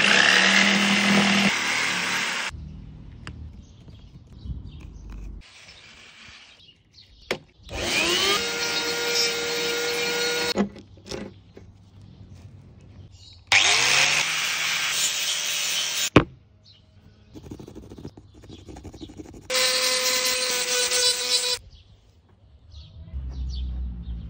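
Power tools working wood in four short bursts: a jigsaw cutting at the start, then a handheld rotary tool with a small sanding attachment spinning up with a rising whine and grinding the spoon bowl, followed by two more bursts of rotary-tool work. Quieter scraping and knocks fill the gaps between bursts.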